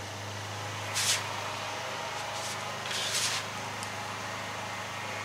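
Spatula scraping across the flat-top griddle twice, once about a second in and again about three seconds in, over a steady low hum.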